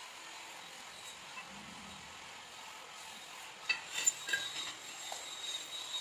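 A metal straightedge clinking against marble slabs: a cluster of sharp metallic clinks with a ringing tail, starting a little past halfway, over a faint steady hiss.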